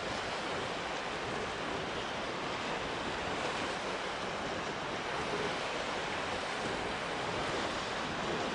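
Strong wind rushing over the microphone: a steady, even noise with rough low rumbling buffets.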